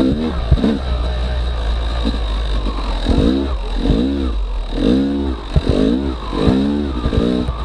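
Yamaha YZ250X two-stroke dirt bike engine revving up and down again and again as the throttle is worked, the pitch rising and falling every half second to a second over a steady low rumble.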